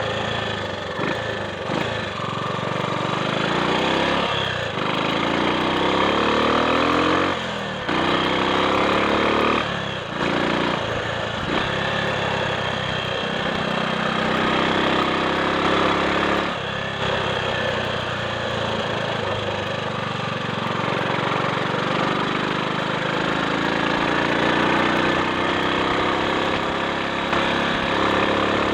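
Triumph Sports Cub's single-cylinder engine running on the road, rising in pitch as it pulls through the gears, with brief drops in level between the rises where the revs fall back.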